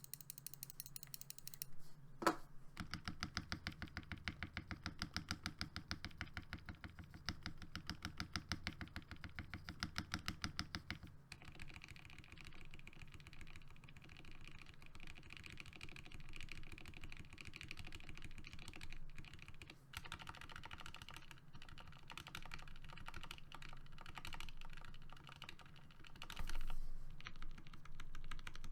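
Typing on a FEKER JJK84 mechanical keyboard with hand-lubed Momoka Frog switches, PBT Cherry-profile keycaps and PE foam switch pads. After a single keystroke, a fast, even run of keystrokes goes for several seconds, then turns into denser, continuous typing.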